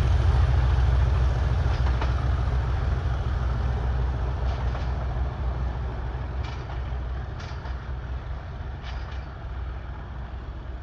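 Deep, steady diesel engine rumble of a locomotive-hauled train, fading evenly as the train draws away, with a few faint clicks in the second half.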